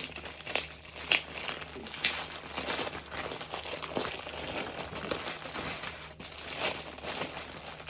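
Packaging crinkling and rustling in irregular crackles as it is handled and opened to take out the next item.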